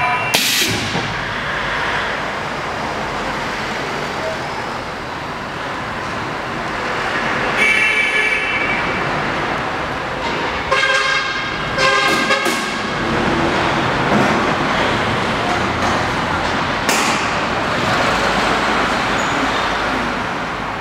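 CNC wood lathe turning a wooden stair leg: a steady hiss and rumble of the cutter shaving the spinning wood. A higher-pitched tone sounds briefly twice, about a third of the way in and just past halfway.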